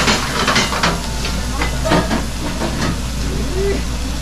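Food sizzling in a frying pan over a gas burner, a steady hiss, with a spatula scraping and knocking against the pan as it is stirred.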